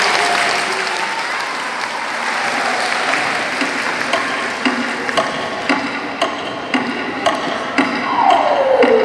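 Audience applauding. About four seconds in, an evenly spaced wood-block tick-tock starts, a knock about twice a second like a clock ticking, and near the end a sliding tone falls in pitch.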